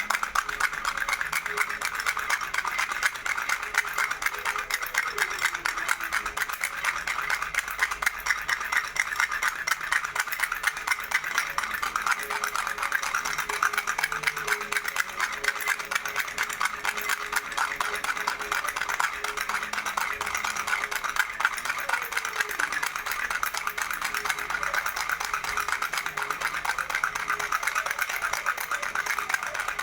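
Baby rattle shaken rapidly and continuously: a dense, steady clatter of small clicks.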